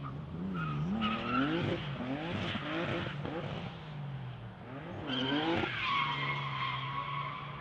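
Race car engine revving up and down repeatedly under hard driving, with tyres squealing about a second in and again in a longer steady squeal from about five seconds in, as the car slides.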